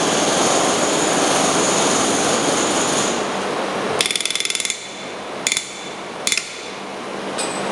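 Pneumatic rivet gun on aircraft sheet metal: a steady hiss with a high whine for about three seconds, then a short burst of rapid hammering about four seconds in, followed by two brief blasts.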